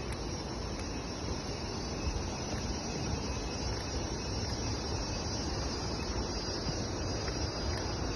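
Steady insect chorus from the tropical forest, a continuous high droning over an even rushing background noise.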